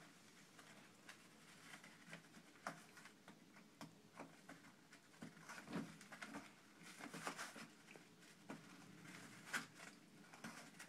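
Faint rustling and scratching of toilet paper being clawed and torn by a Siamese kitten, with soft scattered taps of paws; the rustling gets busier about halfway through.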